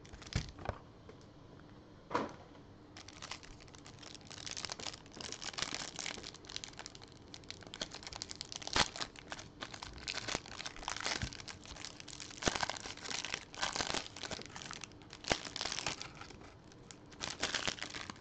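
Clear plastic wrapper of a hanger pack of basketball trading cards crinkling and tearing as it is opened and the cards are pulled out, in irregular rustles and crackles.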